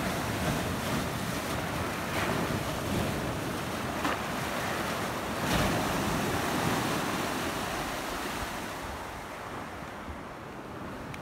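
Sea waves washing over and between granite shore rocks: a steady rush of surf that swells a few times, then grows fainter near the end.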